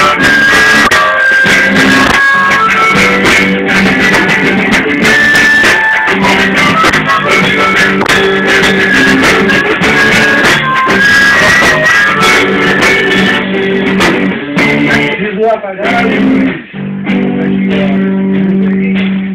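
Live band playing: a semi-hollow electric guitar with a second guitar, and a harmonica played into a microphone carrying held, bending notes. The music drops briefly about three-quarters of the way through, then comes back on a long held chord.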